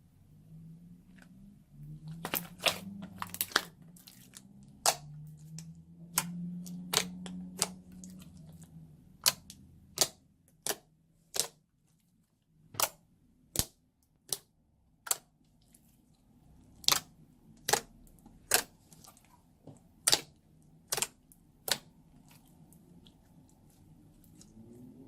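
Slime being piped and squeezed, giving sharp popping clicks at irregular intervals, roughly one a second, over a soft low squelch.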